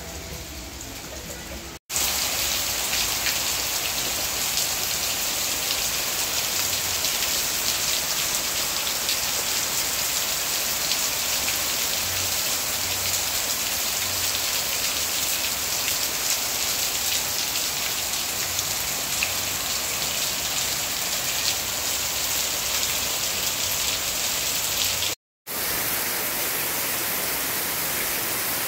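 Heavy rain falling steadily on trees and foliage, a dense even hiss. It is interrupted by a brief silent gap about two seconds in, after which it is louder, and by another gap near the end, after which it is slightly quieter.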